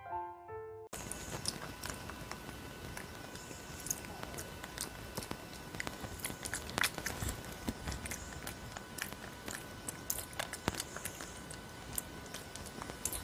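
A short piano phrase cuts off about a second in. Then a crab-eating macaque chews and bites fruit close to the microphone, with many irregular crisp clicks and crunches.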